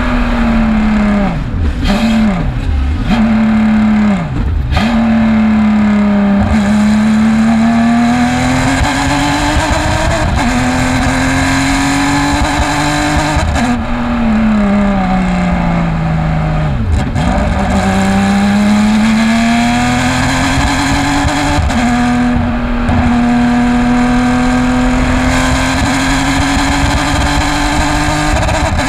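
Porsche race car engine at racing speed, climbing slowly in pitch through long pulls and dropping sharply on shifts, with a cluster of quick drops early on and a long fall about halfway through. The engine is running with a bad misfire.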